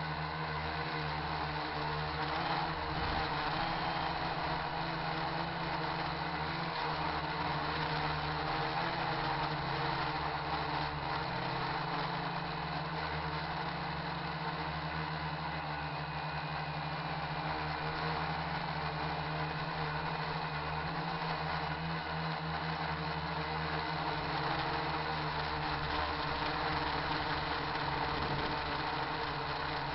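RC quadcopter's electric motors and propellers whirring steadily, a constant hum with several steady tones, picked up by the camera on board, with wind buffeting the microphone.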